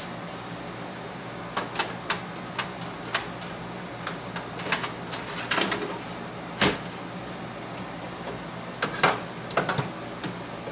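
Irregular sharp clicks and knocks of hands working parts inside an open slot machine cabinet, about fifteen in all, the loudest about two-thirds of the way through and again near the end, over a steady low hum.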